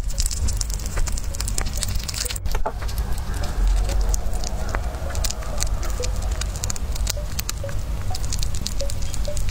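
Sugar glider chewing a whole roach: rapid, crisp crunching and clicking as its teeth break the insect's hard shell.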